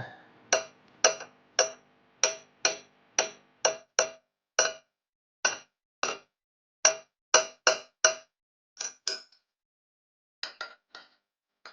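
Metal being struck over and over: sharp ringing knocks about two a second, then a brief pause and a few quicker, lighter knocks near the end.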